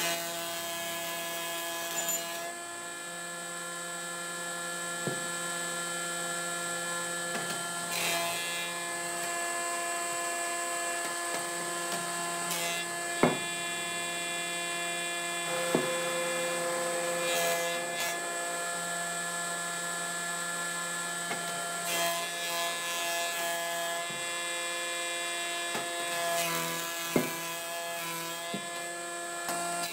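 Nisino combination jointer-planer running steadily as a thick wooden block feeds through its thicknesser, a steady hum with a cutting hiss. A few sharp knocks break in here and there.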